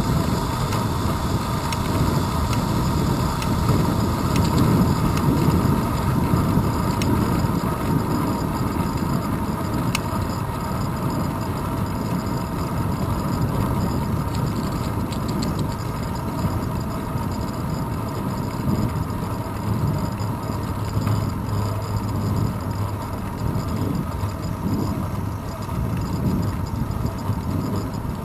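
Wind and road rumble picked up by a handlebar-mounted GoPro camera on a bicycle rolling along a paved path: a steady, uneven low rumble.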